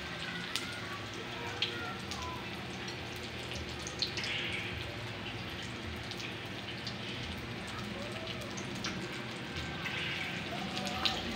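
Oil sizzling steadily in a frying pan as batter-and-breadcrumb-coated tofu pieces fry, with scattered crackles and pops.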